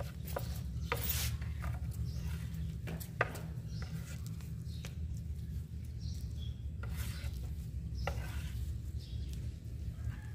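Grout paste being mixed by hand in a container: irregular scraping and rubbing strokes of the mixing tool, over a steady low hum.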